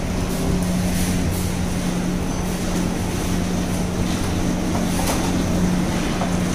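A steady low machine hum over a constant noisy background, with a few faint clicks.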